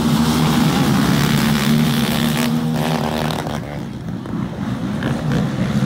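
Several racing quads (ATVs) on a motocross track, their engines revving up and down together as the pack rides through.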